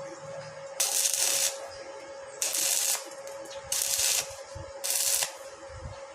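Four short bursts of hissing, each about half a second long and evenly spaced, over a steady faint hum.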